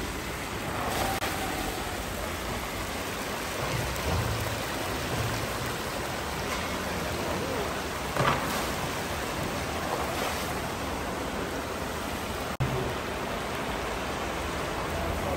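Steady sizzling and bubbling of meat cooking in a giant plov cauldron, with a brief louder rush about eight seconds in as shredded carrots are tipped in from a bowl.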